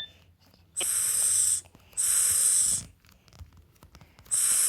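Three drawn-out "sss" hisses, each just under a second long with short pauses between: the S sound spoken aloud for a phonics lesson, just before the word "snake".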